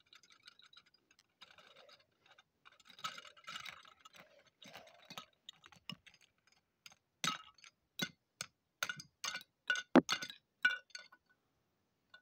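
Small hard pieces clinking and tapping together as shards of a broken window are gathered up. Faint scattered clinks and rattles come first, then a run of sharper clinks about two a second in the second half, the loudest about ten seconds in.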